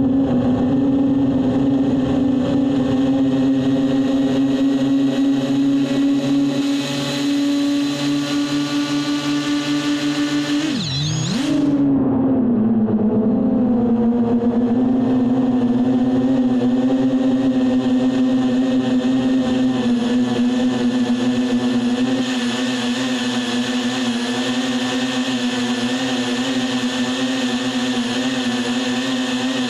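Quadcopter drone's motors and propellers humming at a steady pitch, heard close up from the drone's own camera. About eleven seconds in the pitch drops sharply and swings back up as the motors briefly slow and speed up again, then the hum holds steady.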